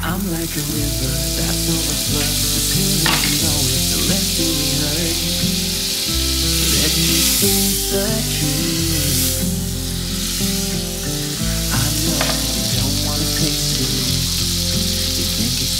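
Butter sizzling and foaming as it melts in a hot Staub enamelled cast-iron round cocotte: a steady frying hiss that starts right away and runs on.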